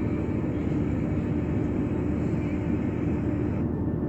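Steady running noise of a passenger train heard from inside the carriage: a low rumble of wheels on the track with an even drone.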